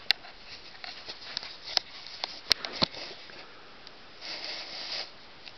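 Light clicks and knocks of toy bowling pins being handled and set down on a hard floor, several separate taps over about three seconds. A short breathy noise follows about four seconds in.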